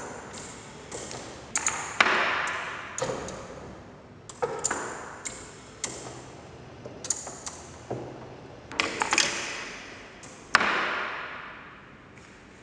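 Electro-mechanical baboon automaton at work: irregular clicks and knocks of its wooden cups, metal levers and mechanism on the wooden tabletop. The loudest knocks, about two seconds in and twice near the end, each ring on and fade over a second or more.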